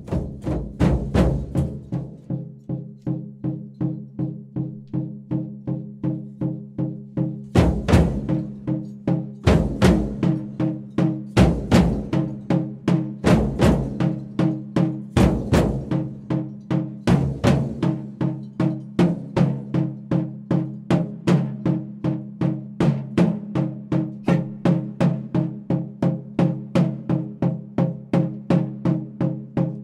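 Drum music: an even, quick drumbeat of about two and a half strikes a second over a low steady drone. Through the middle of the stretch, about six heavier, deeper strikes land roughly every two seconds.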